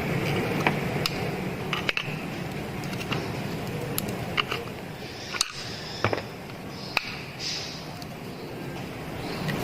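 Scattered sharp clicks and light taps of tools and metal parts being handled while an angle grinder is taken apart.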